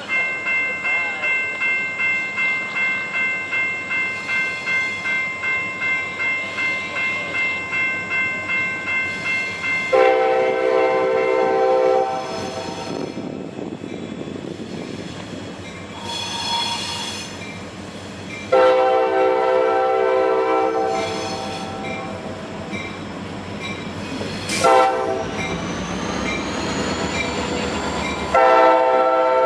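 Air horn of a CSX EMD SD40-2 freight locomotive sounding the grade-crossing signal: two long blasts, a short one, then a final long one as the train arrives alongside. Before the horn, a bell dings rapidly, about three times a second, for roughly ten seconds.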